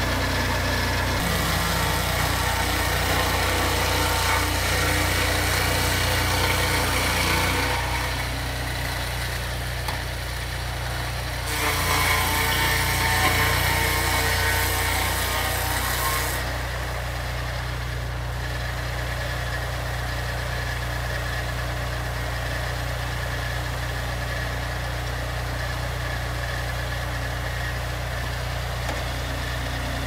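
Engine of a Turbo Sawmill M8 chainsaw mill running steadily while its long bar and chain rip along a log. The harsh noise of the chain cutting wood is loudest for the first eight seconds and again from about twelve to sixteen seconds in, after which the engine runs on alone, a little quieter.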